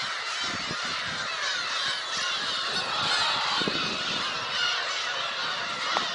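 Black-tailed gull colony: many gulls calling at once, a dense chorus of overlapping calls that never pauses.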